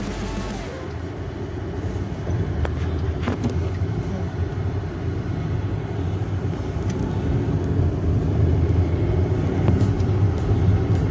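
Car engine and road noise heard from inside the cabin of a manual car on the move, a steady low rumble that grows gradually louder as it speeds up. A few light clicks sound over it.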